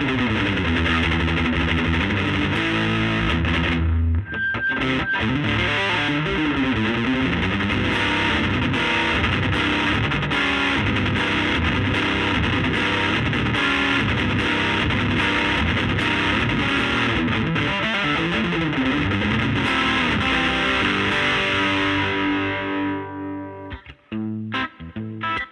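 Distorted electric guitar from a Reverend Pete Anderson PA-1 with P90 pickups, played through the gain channel of a Laney Lionheart L5 Studio amp into a 15-inch Jensen Alnico speaker, with the amp's bass turned down a little. Continuous overdriven riffs and chords run for most of the stretch, then about 23 seconds in they turn into short choppy stabs with gaps between them.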